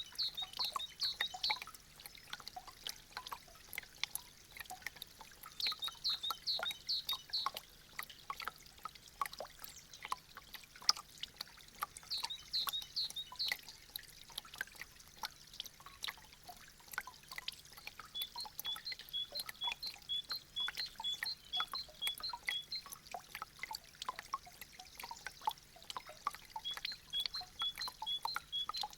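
Meltwater dripping and trickling from melting icicles, with many irregular drops landing. Short high-pitched notes come in clusters early on, then repeat about twice a second through the last third.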